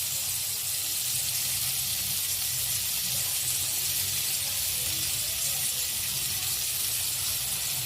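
Chopped onion frying in melted butter in a kadai: a steady, even sizzle.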